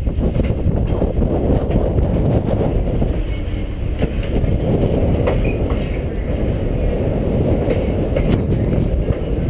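Passenger train rolling along the track, a steady low rumble of wheels on rail with a few sharp clicks now and then.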